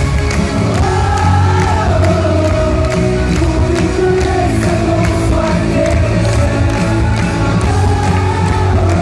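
Live pop-rock band music: a male lead singer sings a held, wavering melody at the microphone over bass guitar and the band, heard from within the audience.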